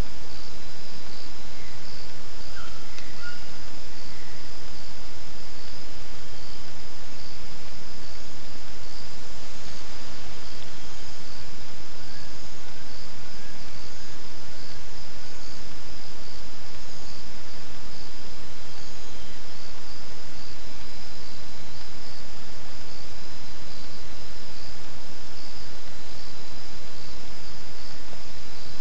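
Steady forest insect chorus, a high shrill band with regular pulsing, over a constant hiss, with a few faint short chirps a few seconds in and again around the middle.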